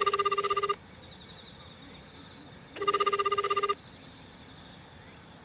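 Japanese telephone ringback tone heard through a phone's speaker while the called phone rings unanswered: two one-second rings of a fast-warbling tone, about three seconds apart.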